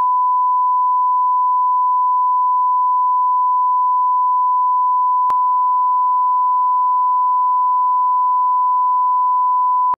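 Steady 1 kHz sine-wave reference tone: the broadcast line-up tone that goes with colour bars, used to set audio levels before a programme. It is one pure, unchanging pitch that cuts off abruptly at the end.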